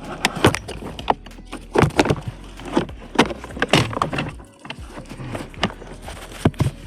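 Irregular clacks and knocks of hard parts and tools being handled, a dozen or so sharp hits at uneven spacing.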